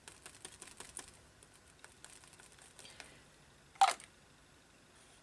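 Faint small clicks and taps of a dropper bottle of ink being handled and dabbed against a paper journal page, then one short, louder rustle just under four seconds in.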